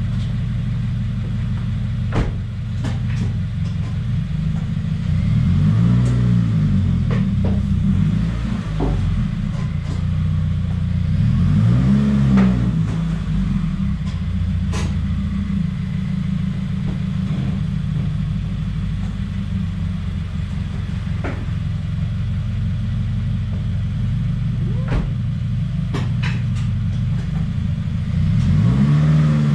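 2017 Subaru WRX's turbocharged flat-four engine running, its speed rising and falling three times, with a few short clicks. The owner reports a rough, choking idle and stalling, and suspects a boost or vacuum leak after fitting an aftermarket charge pipe and top-mount intercooler.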